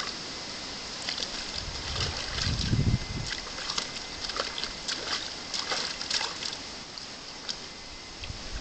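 Water splashing and sloshing in a plastic basin as a young vervet monkey paws and dips into it. There is a quick run of small splashes from about a second in to about six seconds, then it quietens. A low thud near three seconds in is the loudest moment.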